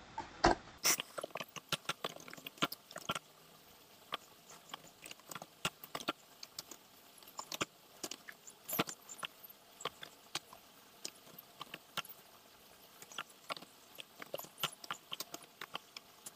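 Laptop keyboard being typed on: irregular key clicks, a few a second, with brief pauses between bursts.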